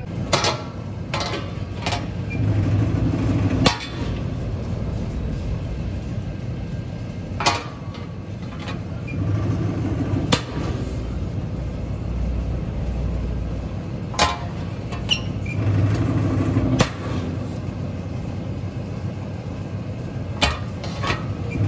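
A punch press cutting hinge slots in a sheet-steel door frame. About every six seconds the machine hums for a second and then strikes with a sharp metallic bang. Other clanks of metal being handled come in between strokes.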